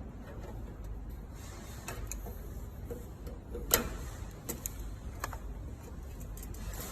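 Scattered small clicks and taps of hand work with a screwdriver on the water heater's parts, the loudest a single sharp click a little over halfway through, over a steady low hum.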